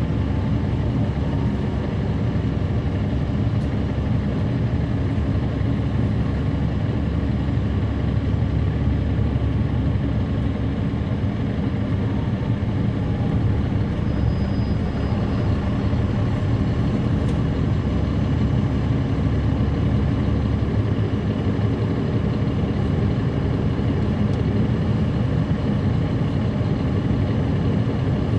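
Caterpillar C13 ACERT diesel engine of a 2009 NABI 416.15 transit bus running, heard from inside the bus, as a steady low drone.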